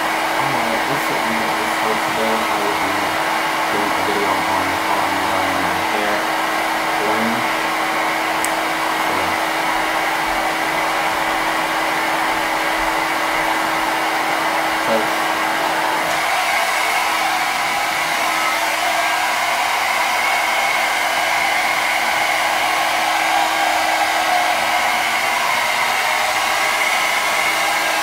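Handheld hair dryer running steadily, blowing on hair. About sixteen seconds in, its low hum drops away and the sound turns brighter and hissier.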